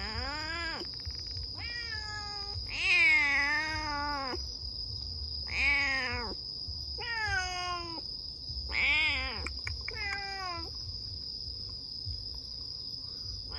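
Black stray cat, freshly spayed and confined in a wire trap cage, yowling: a string of about seven long, wavering cries that drop in pitch at their ends, the loudest about three seconds in, then falling quiet for the last three seconds.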